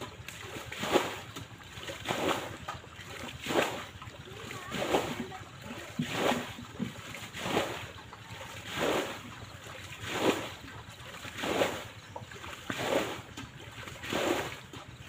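Pond water bailed out by hand with a pan: a scoop and a splashing throw about every 1.3 seconds.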